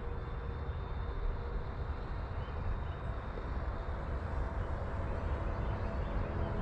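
Wind rumbling on the microphone, with the faint steady whine of a distant electric RC plane, an E-flite Cirrus SR22T, in flight. Music starts to fade in near the end.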